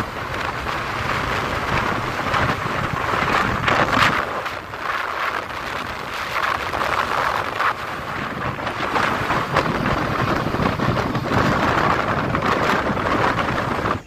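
Wind buffeting the microphone on a moving motorcycle: a loud rushing noise that swells and eases throughout.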